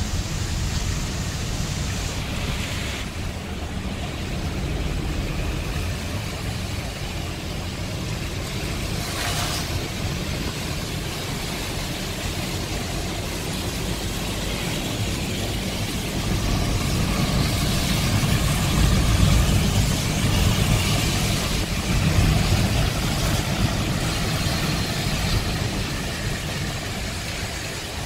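Wind buffeting the microphone over the steady wash of a choppy sea: a continuous low rumble with a hiss above it, gusting louder for several seconds past the middle.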